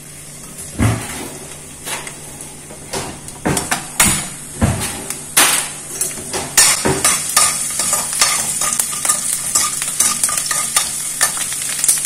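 Chopped garlic frying in hot oil in a kadai as the flame comes back on: a few scattered clicks and knocks at first, then from about halfway a steady crackling sizzle that grows denser as the garlic starts to bubble.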